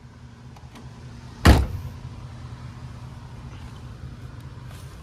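A vehicle door shuts once with a loud thud about a second and a half in, over the steady low hum of an idling vehicle engine.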